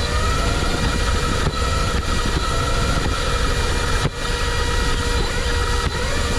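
Electric RC car running on its brushless motor: a steady, slightly wavering motor whine over a loud rumble of wheels and wind.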